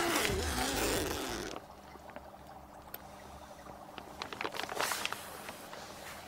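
Music stops about a second and a half in. Then a body bag's zip is pulled open with rustling of the bag, heard as a run of quick scratchy ticks lasting about a second and a half.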